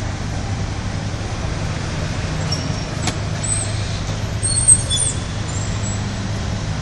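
Steady low rumble of vehicle engines and road traffic, with a single click about three seconds in and a few brief high-pitched squeaks around the middle, the loudest coming at about four and a half seconds.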